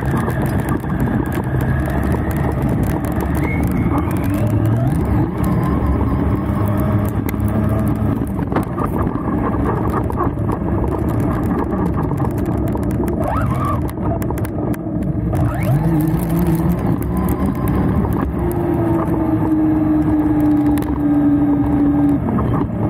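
Electric RC car (JLB Cheetah 4WD with brushless motor) running flat out over dirt and grass, its motor whine rising and falling in pitch with the throttle, over a constant rumble and scrape from the wheels and the ride-along camera mount. Near the end the whine holds one steady, slowly falling note for a few seconds.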